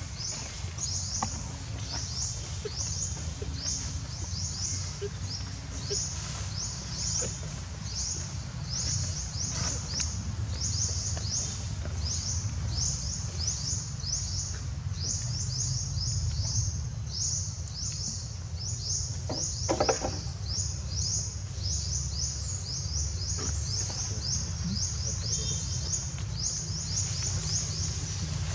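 High-pitched insect chorus, a steady train of rapid rasping pulses, several a second, that never lets up, over a constant low rumble. A single short click comes about twenty seconds in.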